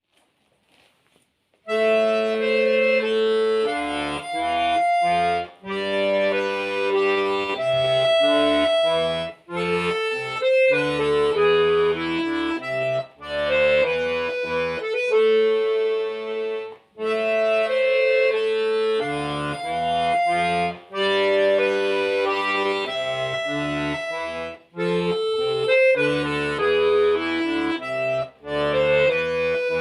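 Solo bayan (Russian button accordion) playing a minuet, with melody over bass notes, starting about two seconds in and moving in short phrases with brief breaks between them.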